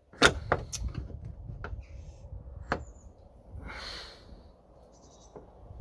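Sharp clicks and knocks of a boot-lid gas strut being worked and forced onto its ball-stud mounts, the strut end refusing to pop on. A short hiss comes near four seconds in.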